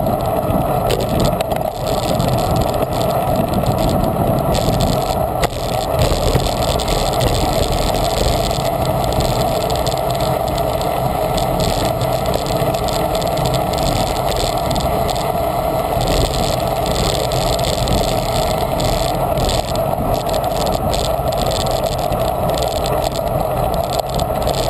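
Steady wind rush and tyre noise on an action camera's microphone, carried on a road bicycle riding at speed in a group.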